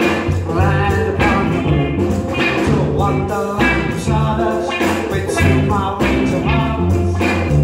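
Live rock band playing: a male lead singer over electric guitars, electric bass and a drum kit.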